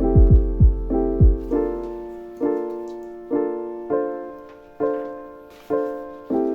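Background music: piano or keyboard chords struck about once a second and fading between strikes, with a deep electronic drum beat that drops out about a second and a half in.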